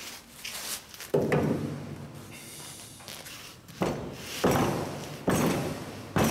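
A steel bar welded onto a steel frame is jerked hard by hand, giving about five heavy knocks and clanks through the metal, each ringing briefly. The vertical-down MIG weld holds under the strain.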